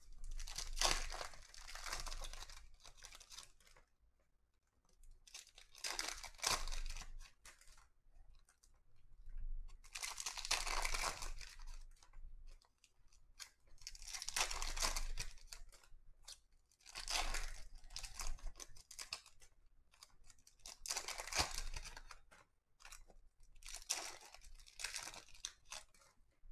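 Foil-wrapped 2020 Donruss Optic football card packs being torn open and crinkled by hand, one after another: about seven separate bursts of tearing and crinkling wrapper with short pauses between them.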